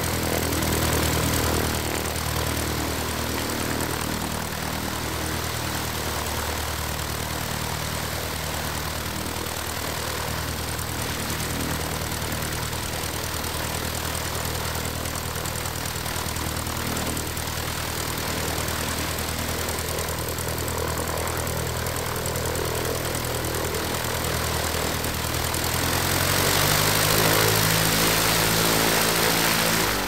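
Aircraft engines running steadily while the plane taxis, a low, even engine drone. About 26 seconds in, the engine note steps up in pitch and grows louder as power is added.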